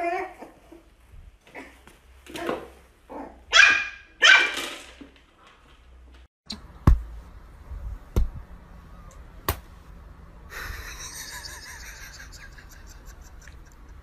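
Small fluffy dog yapping, a run of about six high, sharp barks in the first half. After that it goes much quieter, with a few sharp taps.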